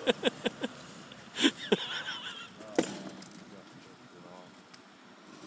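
People's voices: a quick run of rhythmic laughter at the start, then a few short, louder outbursts and high-pitched laughs, dying away in the second half.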